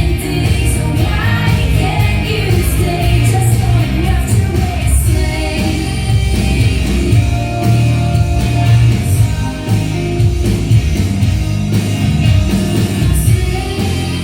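Music: a pop-rock song with a singing voice over a band accompaniment and a steady bass line.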